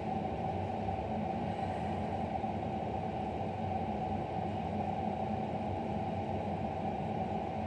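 Steady low hum with faint hiss, unchanging throughout: background room noise with no distinct events.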